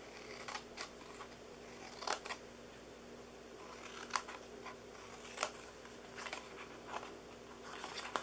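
Scissors cutting through cardstock: about a dozen separate sharp snips, irregularly spaced, as slits are cut into the card up to a score line.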